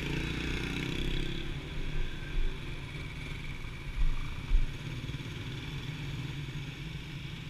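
Street traffic: small motorcycles running past, one engine fading away within the first second or two over a steady low rumble. A few short low thumps come at about 2 and 4 seconds in.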